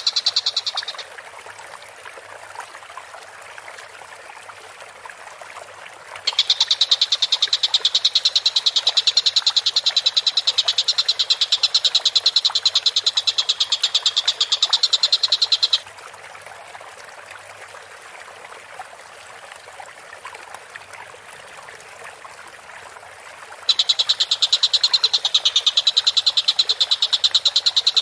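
Tengkek buto kingfisher calling in long, rapid, high-pitched rattling trills, each lasting about nine seconds, with pauses of several seconds between them: one trill ends about a second in, another runs through the middle, and a third starts near the end.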